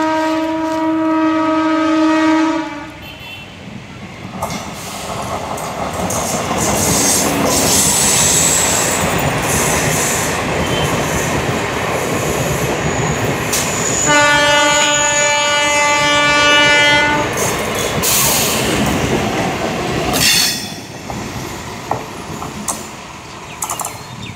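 MEMU electric passenger train passing close by, its wheels rushing and clattering over the rails. The horn sounds at the start and again for about three seconds a little past halfway.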